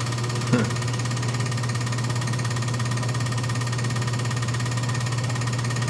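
Steady low mechanical hum of the running vacuum-chamber equipment that holds the glow-discharge plasma, unchanging throughout, with a brief faint sound about half a second in.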